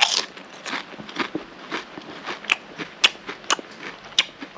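Someone chewing garlic-flavoured potato chips: a run of short, sharp crunches at an uneven pace, about two a second.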